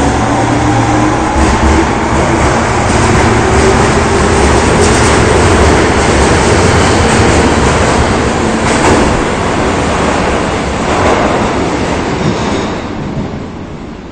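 Osaka Municipal Subway 22 series train pulling away from a station. A rising motor whine fades in the first second or two, giving way to loud running and wheel noise with a few clacks. The noise dies down near the end as the train leaves.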